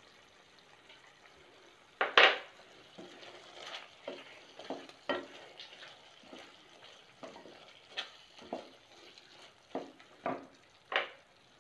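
Slotted wooden spatula stirring chicken and freshly added ground pepper masala in a stainless steel pan: irregular scraping strokes against the pan, starting about two seconds in, the loudest near the start and near the end.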